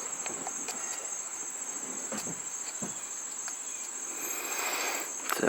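Crickets chirping in a steady high trill, with faint scattered clicks and a short sharp noise near the end.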